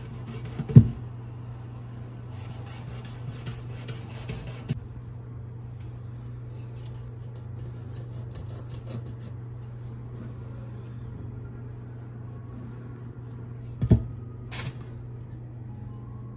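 A fish being cleaned with kitchen scissors: scraping and cutting against the fish, with a sharp knock about a second in and another near the end, over a steady low hum.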